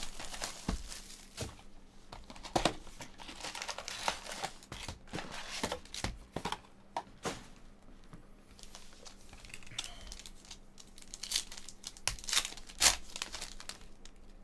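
Plastic shrink-wrap and a trading-card box crinkling and tearing as a Panini Prizm basketball box is unwrapped, then foil card packs rustling and being torn open. The sound is a run of irregular crackles with sharp rips scattered through it.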